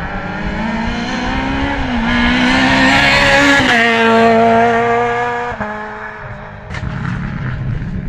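Renault Clio rally car accelerating hard up the road toward and past the listener. Its engine pitch climbs steadily, drops sharply as the car passes about three and a half seconds in, steps down again, and fades as it drives away.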